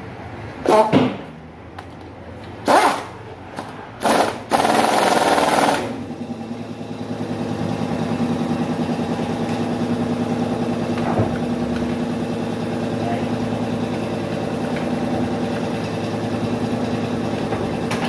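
Several short hissing blasts, the last about a second and a half long, then a steady motor hum starts about six seconds in and runs evenly.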